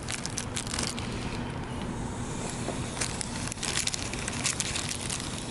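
Campfire crackling and popping in quick irregular bursts, over a steady low background rumble.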